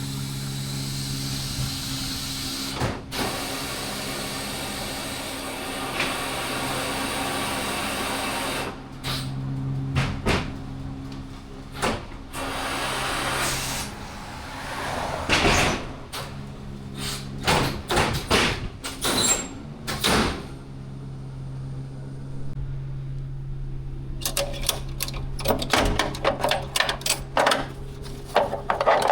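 A hydraulic pump motor hums steadily as the car hauler's lift platform is raised, with scattered metal knocks and clanks. The hum stops about two-thirds of the way through, and a run of rapid clicking follows.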